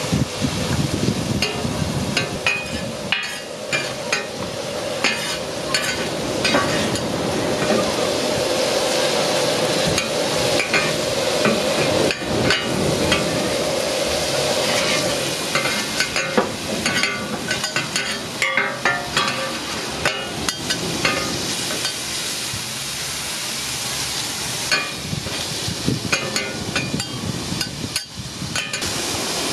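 Cubes of beef steak with onion and garlic sizzling on a flat-top griddle, with many quick clicks and scrapes as metal spatulas toss and scrape the pieces across the hot plate.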